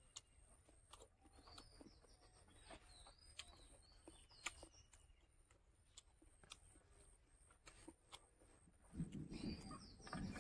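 Near silence, with faint bird chirps in the background and a few small clicks. A louder low noise comes in near the end.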